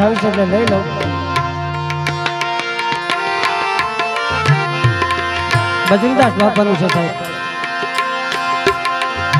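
Instrumental passage of devotional bhajan music: tabla strokes in a steady rhythm over held melody notes.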